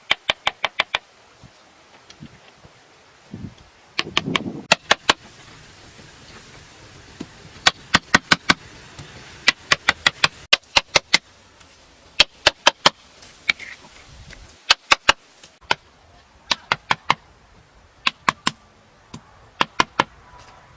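Sharp taps or knocks coming in quick runs of several at a time, about eight a second, with pauses of a second or more between runs, and a brief scraping rustle about four seconds in.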